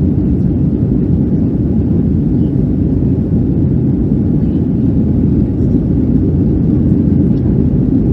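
Steady, loud low-pitched noise inside the cabin of a Boeing 757-200 under way: engine and airflow sound heard through the fuselage, unchanging throughout.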